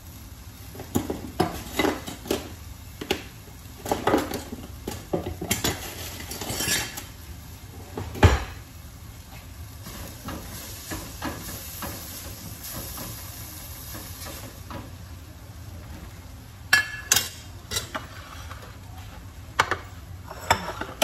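Metal spoon stirring and scraping in a stainless steel pot on the stove, with many short clinks and knocks of metal on metal and one loud knock about eight seconds in. A light sizzle from the heated pot lies under it, and a few sharp clinks come again near the end.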